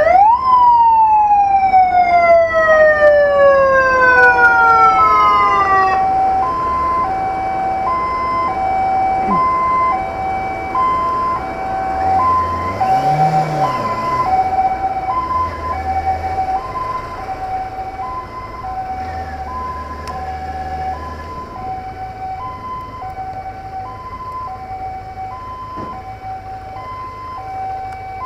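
Emergency sirens. One starts at the outset with a quick rise, then winds down in a long falling wail over about six seconds. A two-tone hi-lo siren alternates steadily throughout, each tone held a little over half a second. A low vehicle rumble comes in around the middle.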